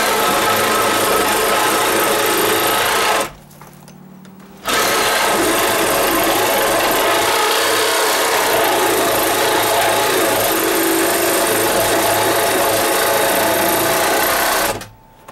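Cordless reciprocating saw running steadily as its blade cuts through a wooden wall stud. It stops about three seconds in, starts again a second and a half later, and cuts off just before the end.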